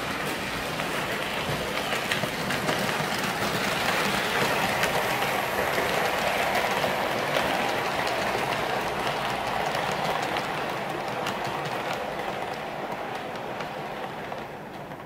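HO-scale model train, a C57 steam locomotive model hauling five coaches, running past on the layout track: a rolling rumble of metal wheels on rail with many small clicks. It grows louder as the train nears and fades near the end as the last coach goes by.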